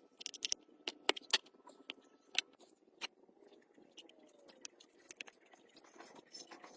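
Irregular sharp clicks and light taps, clustered in the first second and a half, over faint scraping.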